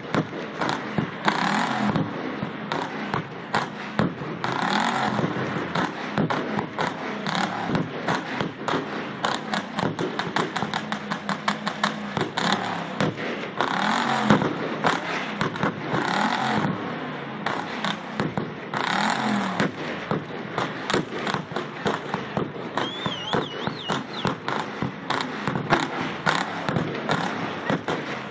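Vintage pickup truck's engine revving up and down with rapid crackling exhaust pops, while its exhaust flamethrower fires in loud bursts every few seconds, about five times.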